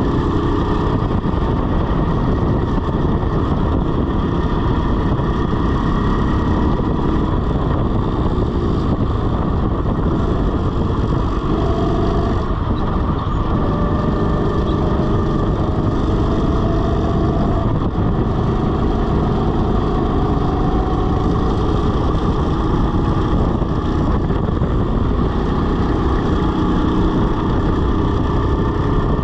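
Rental go-kart driven at speed around a track, its motor and the rush of air making a loud, steady rumble, with faint higher whines coming and going midway through.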